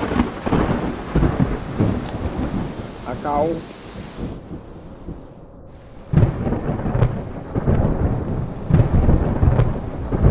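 Close thunder: a sudden crash right at the start that breaks into crackling, rolling rumble and dies down by about four seconds in. A second close crash follows about six seconds in, with the lightning strike, and rumbles on.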